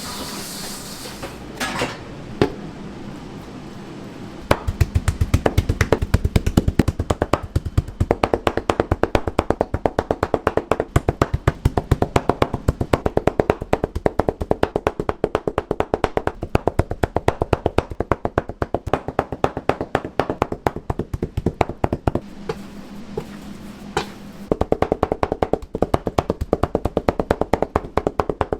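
Rapid, even strikes on a cutting board, many a second, of the kind made when pork is pounded thin or cabbage is shredded. They start a few seconds in, stop for about two seconds near the end, and then resume.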